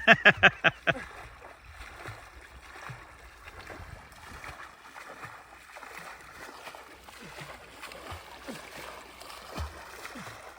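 Lake water lapping and sloshing with small splashes and drips around a kayak, after a quick run of about six sharp, loud sounds in the first second.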